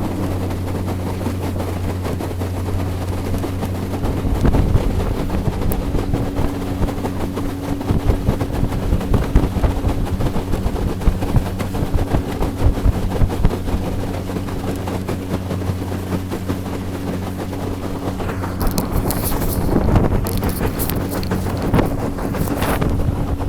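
Outboard motor of a small aluminium boat running under way at a steady pitch, with wind buffeting the microphone and irregular knocks. Short bursts of hissing noise come near the end.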